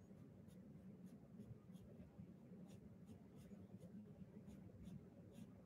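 Faint scratching of a graphite pencil on paper: a run of quick, short, light strokes, about two or three a second.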